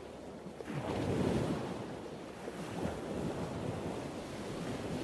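Ocean waves crashing on a shore: a wave breaks about a second in, then the surf washes on steadily.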